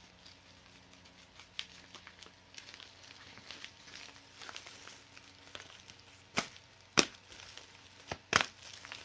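Faint crinkling and rustling of a padded paper mailer being handled and opened, with four sharp snaps or clicks over the last third, the loudest about seven seconds in.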